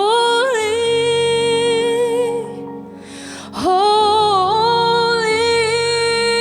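A woman singing two long held notes without words, the second sliding up into place about halfway through, over a sustained keyboard pad in a slow worship song.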